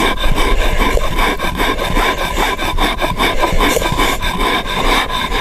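A hand stone rocked back and forth over a flat stone slab, grinding toasted cañihua grain into flour: a continuous dry, gritty rasping of stone on stone in quick, uneven strokes.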